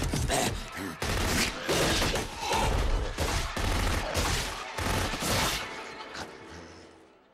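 Repeated bursts of gunfire, many shots in quick succession with heavy low booms, dying away near the end.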